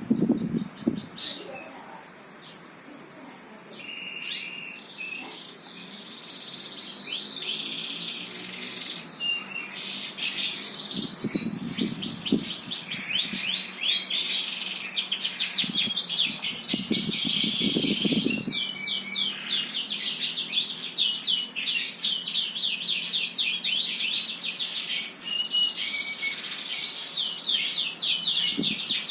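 A songbird singing a long, continuous song of fast trills and rapid chirps. Twice, a short low muffled sound comes underneath the song.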